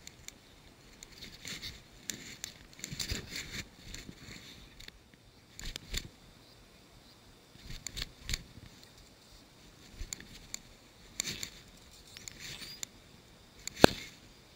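Intermittent rustles, scrapes and clicks as a fly rod and its line are handled, with one sharp click near the end that is the loudest sound.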